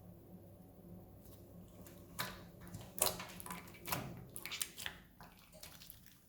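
Clear slime being worked by hand: a run of sticky squelches and crackly snaps starting about two seconds in, the loudest near the middle.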